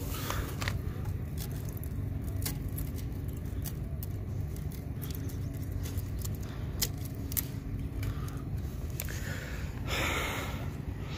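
Steady low outdoor rumble with scattered light clicks and taps. A short rush of hiss comes about ten seconds in.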